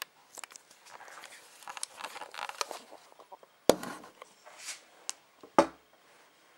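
Handling noise: rustling and scraping as the hand-held meter and camera are moved, with two sharp knocks, one a little past the middle and one near the end.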